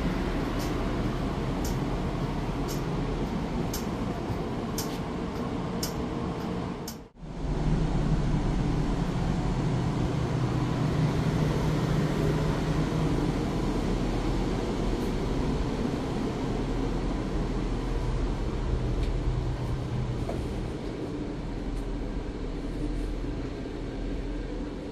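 Interior noise of a Melbourne B2-class tram: a steady rumble with light clicks about once a second. After a brief break about seven seconds in, the rumble is louder, with a steady low hum.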